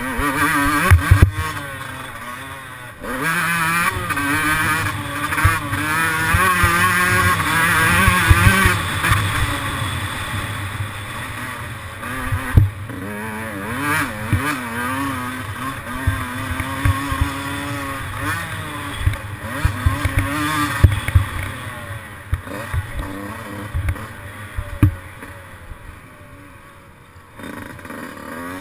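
Yamaha YZ125's 125 cc single-cylinder two-stroke engine being ridden hard, its revs rising and falling again and again. Frequent short low thumps run through it.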